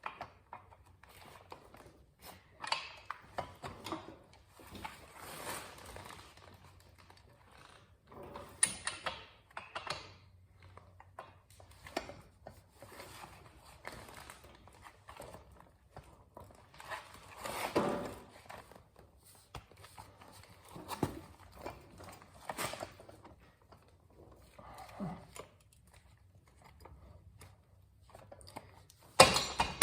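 Irregular clicks, knocks and short scrapes of hand tools and metal parts being handled while reassembling a motorcycle's rear wheel, with a louder clatter near the end.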